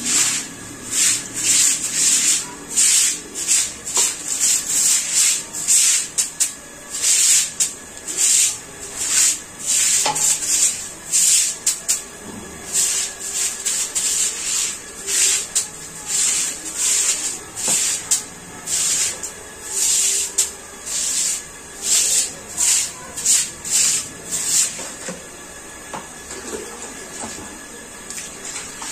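Stiff bristle broom scrubbing a wet tiled floor in short, quick strokes, a hissing scrape about one to two times a second.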